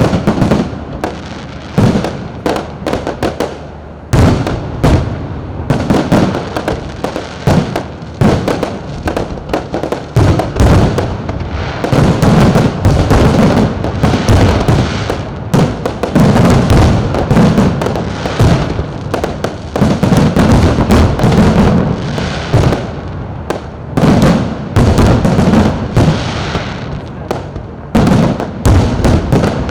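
Fireworks going off in quick succession: sharp bangs and crackling bursts, one on top of another, growing denser from about twelve seconds in.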